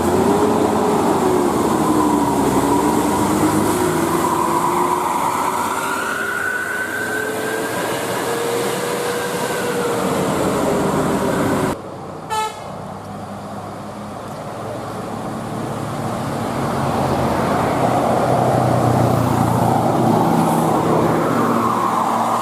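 A bus's Basuri telolet horn sounding one long tone that wavers slowly up and down, over engine noise. It cuts off abruptly just before halfway, followed by a single click, then a bus engine grows steadily louder as it approaches.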